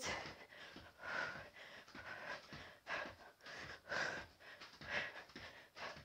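A woman breathing hard from exertion, a noisy breath about once a second, mid-way through a set of crab kicks.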